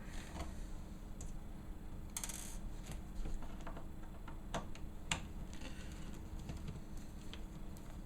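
Light clicks and scrapes of a small screwdriver working the screws out of a laptop's plastic display housing. There is a brief rasping burst about two seconds in and a couple of sharper ticks around five seconds in.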